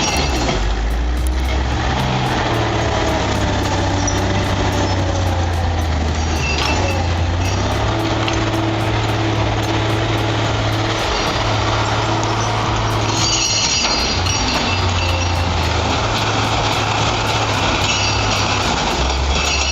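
Heavy diesel engine of a large machine running under load, its low tone stepping up and down as the load changes.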